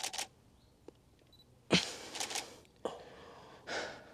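Digital SLR camera shutter firing several times: a double click at the start, a quick run of clicks a little under two seconds in, then single clicks near three and four seconds.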